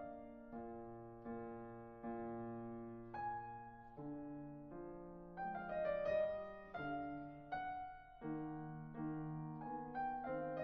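Solo piano music: single notes and chords struck and left to ring, changing about once a second.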